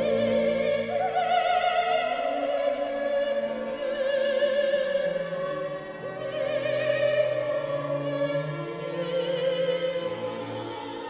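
A solo soprano singing with wide vibrato over a period-instrument string orchestra playing sustained chords; she pauses between phrases about six seconds in, then sings on.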